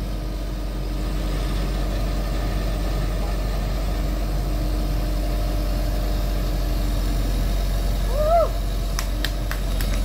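Backhoe's diesel engine running steadily under load as it lifts a stuck Jeep. A short rising-and-falling hoot comes about eight seconds in, followed by a few sharp clicks near the end.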